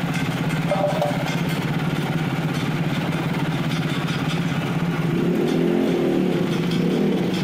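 Small air-cooled engine of a reaper binder machine running with a steady, evenly pulsing beat, growing louder and fuller about five seconds in.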